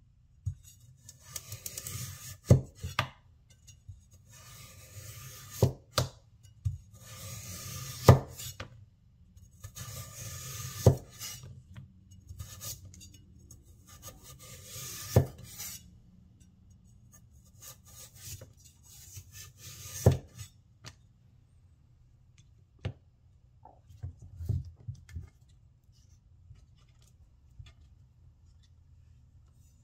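Chinese vegetable cleaver slicing lengthwise through a raw carrot on a wooden cutting board: about six long cuts, each a drawn-out scraping of the blade through the carrot that ends in a sharp knock on the board. After about twenty seconds only a few light taps are left as the carrot pieces are moved.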